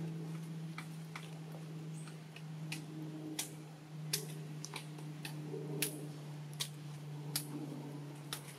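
A dozen or so sharp, irregular clicks over a steady low hum.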